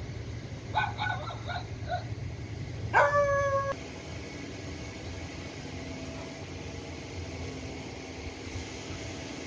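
A dog yapping several times in quick short barks, then one louder drawn-out yelp about three seconds in, over a steady low background rumble.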